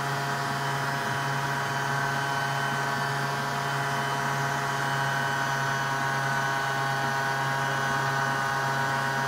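SilverCrest stand mixer's electric motor running steadily under the load of kneading sweet bread dough, a constant hum with a whine of several steady tones.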